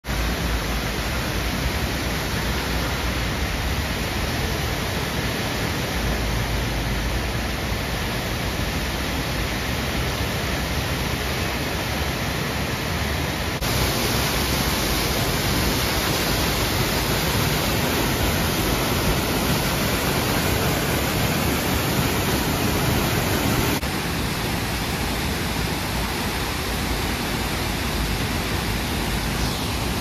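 Muddy storm runoff cascading down a steep rock-cut slope as a waterfall, a steady rushing of falling water. It is louder for about ten seconds in the middle, where the water is seen close up.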